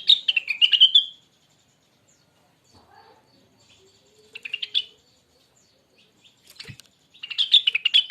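Rengganis (cucak wilis) songbird singing: bursts of rapid twittering notes that slide down in pitch. One burst comes at the start, a softer one about four and a half seconds in, and a loud one from about seven seconds on. A soft knock comes just before the last burst.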